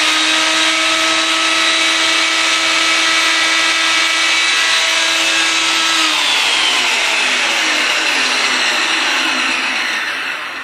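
Steel City 13-inch benchtop planer with a helical cutterhead running empty, with no board being fed: a loud, steady whine. About six seconds in it is switched off, and the pitch falls as it spins down to a stop.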